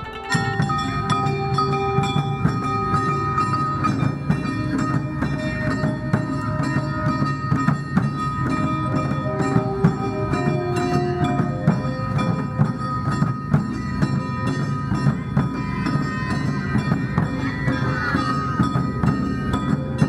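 Music: held notes over a dense, quick percussion pattern, which comes in suddenly just after the start.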